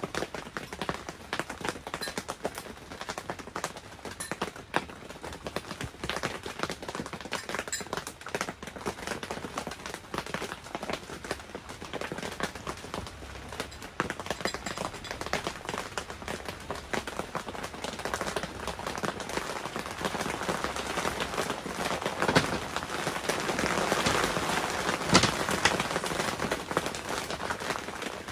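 Rain falling on a clear tent: a dense, even patter of many small drops. It grows louder from about two-thirds of the way in, with a couple of sharper knocks near the end.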